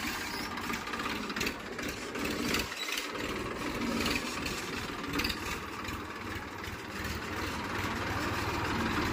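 Massey Ferguson 1035 DI tractor's three-cylinder diesel engine running steadily as the tractor drives off.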